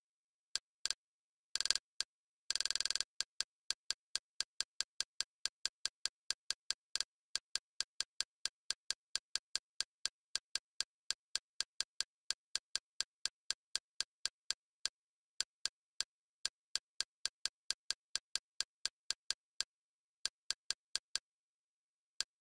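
Kodi menu navigation sounds: short, crisp clicks at about three a second, one for each step of the highlight down a list, with a fast run of clicks about two and a half seconds in.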